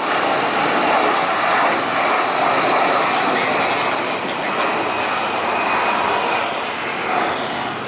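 Jet airliner's engines, a loud steady jet noise with a faint whine running through it.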